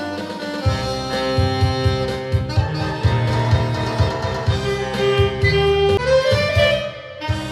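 Saxophone playing a melody over an accompaniment with a steady bass line. The music drops briefly in loudness just before the end.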